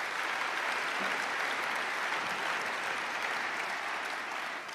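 Large seated audience applauding, a dense steady clapping that begins to die away near the end.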